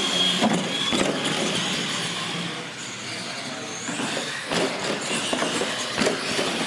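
Two R/C monster trucks racing over a concrete floor and wooden jump ramps: a steady run of motor and tyre noise with a high whine near the start, and several short knocks as they hit and land off the ramps.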